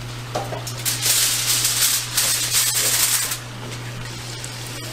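Hot oil sizzling loudly in a cast-iron skillet for about two and a half seconds, starting about a second in, then dropping back.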